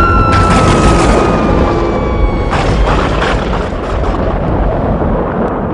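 Cartoon horror sound effects: a loud, continuous rumbling boom, with a single tone that slides slowly down in pitch over the first two seconds, under background music.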